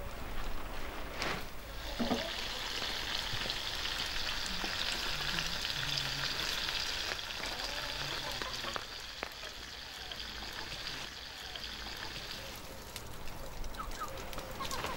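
Chicken pieces and potatoes sizzling in a pan over a wood fire: a steady frying hiss that softens and dies down near the end.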